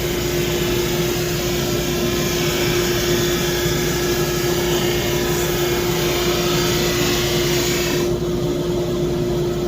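SuperMax 25-50 drum sander running with a steady hum and one strong held tone under a wide sanding hiss. About eight seconds in, the higher hiss drops away while the hum carries on.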